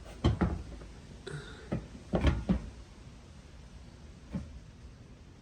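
A few scattered short knocks and clatters, handling sounds over a low background rumble.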